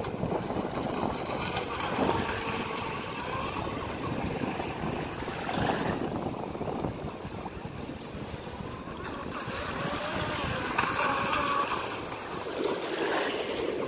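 Vector SR80 Pro RC speedboat's brushless electric motor whining, its pitch rising and falling with the throttle as the boat runs across the water, over a steady wash of wind and water noise.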